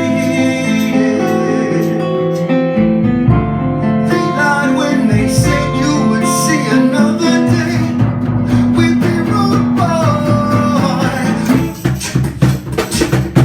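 Live band playing an instrumental passage of a song, with guitar. Near the end, a quick run of sharp percussive hits comes in.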